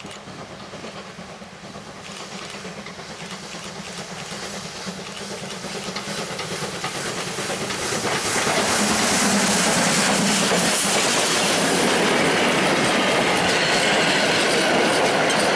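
Steam locomotive 555.3008 hauling a train of vintage passenger coaches, approaching and passing close by. The sound grows steadily louder over about eight seconds, then stays loud with the clickety-clack of the coaches' wheels over the rails as they go past.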